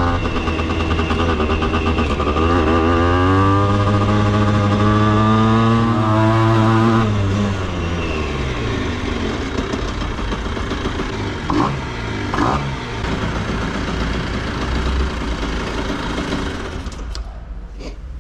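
Aprilia RS50's 50cc two-stroke single-cylinder engine under way. It accelerates with the pitch climbing for several seconds, then falls in pitch as it slows, with two short blips a few seconds later before it fades near the end.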